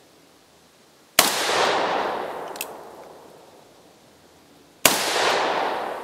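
.44 Magnum single-action revolver with a 7½-inch barrel (a Pietta 1873) firing two shots about three and a half seconds apart. Each shot echoes for a couple of seconds, and a light click comes about a second and a half after the first.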